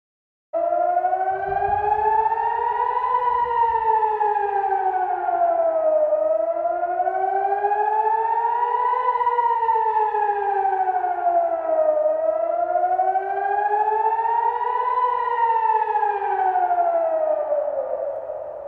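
Air-raid warning siren wailing, rising for about three seconds and falling for about three, three times over; it starts suddenly and fades near the end.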